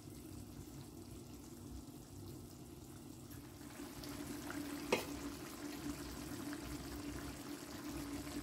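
Curry chicken sauce bubbling at a simmer in an electric pot, over a steady low hum. The bubbling grows louder a little under halfway through, and there is one sharp click about five seconds in.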